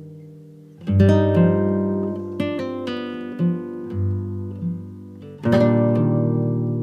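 Background music on acoustic guitar: chords strummed at about one second in and again at about five and a half seconds, with single picked notes ringing and fading between them.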